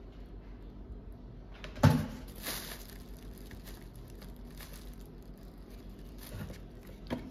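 A single sharp knock on a wooden table about two seconds in, then faint scratching of a pen writing in a paper pilgrim credential.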